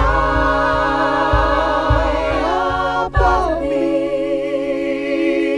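Voices singing the closing held chord of a song with vibrato, over a low drum beat that stops a little past halfway.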